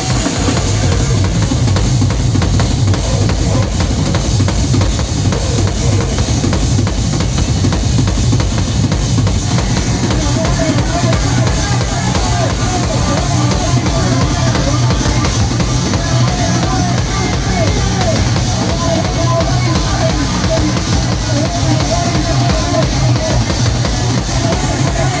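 Loud live noise-rock from a drums-and-bass duo: fast, dense drumming over a heavily distorted bass guitar line.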